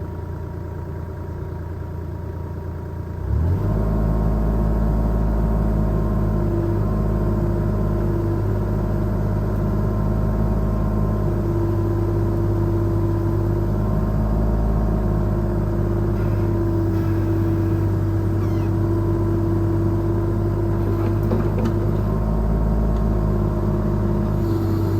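Diesel engine of a CAT 303.5E mini excavator idling, then revving up quickly about three seconds in and running steadily at higher speed. Whining tones come and go over the engine as the machine is worked.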